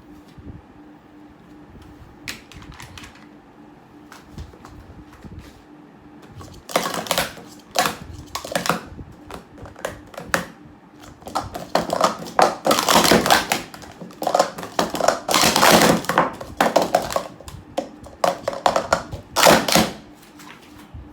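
Plastic sport-stacking cups clattering in fast runs of sharp clicks as they are stacked up and down. The clatter starts several seconds in, is densest in the middle, and ends with a short burst near the end.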